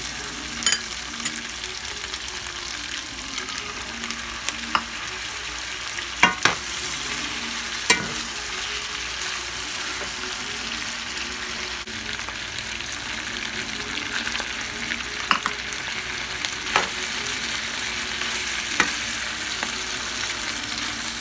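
Pork with carrot and red bell pepper strips sizzling steadily in a skillet as it is stirred with a metal spoon. The spoon clinks sharply against the pan now and then, about ten times.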